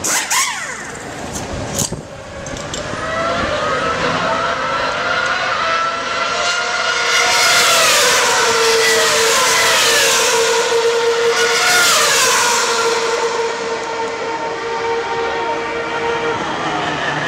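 Formula 1 cars' 2.4-litre V8 engines running in the pit lane, their pitch falling away twice as cars go by, with a steady held engine tone in between. A few sharp clicks in the first couple of seconds.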